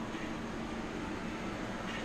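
Steady mechanical hum and hiss, with no distinct knocks or clicks.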